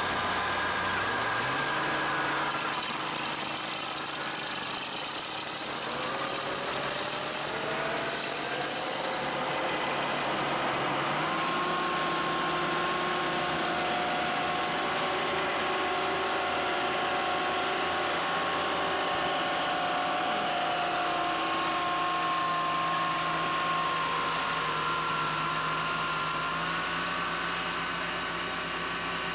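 Diesel engines of farm machinery, a straddle tractor and a telehandler, running steadily; the engine note shifts to a new pitch a few times.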